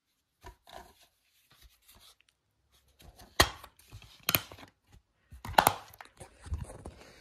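A plastic DVD keep case being handled, snapped open and the disc pried off its centre hub: soft rustling, then a few sharp plastic snaps and clicks, the loudest about three and a half seconds and five and a half seconds in.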